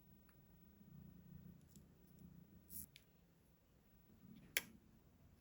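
Near silence with a few small, faint clicks, and one sharper click about four and a half seconds in.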